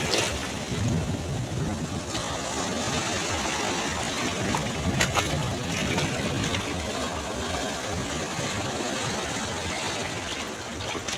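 Ocean surf washing steadily onto a beach, a little louder at the start as a wave spends itself.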